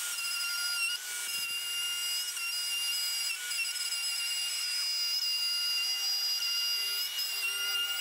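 Plunge router running at full speed with a steady high-pitched whine, cutting a groove into a plywood wall panel as it is pushed along a guide rail.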